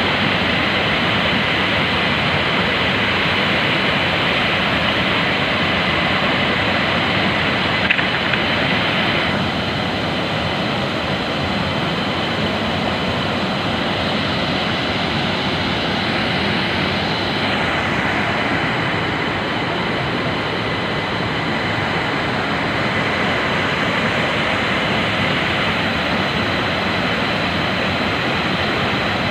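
A mountain stream's waterfall and rapids rushing steadily at close range, with a single short click about eight seconds in. The hiss dulls a little soon after.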